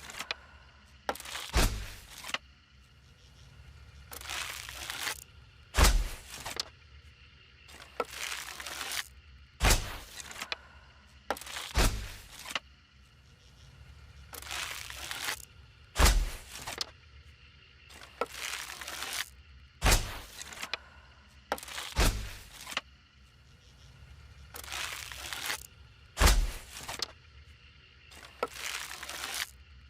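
Bow and arrow shots repeated about every three to four seconds: each a short hissing whoosh ending in a sharp, deep thud.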